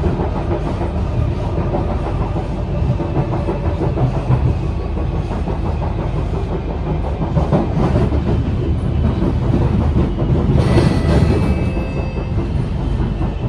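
Steady low rumble inside a moving Kawasaki C151 MRT car: wheels on the track and the traction motors running at speed. About ten and a half seconds in, a brief higher whine with a few thin tones joins the rumble.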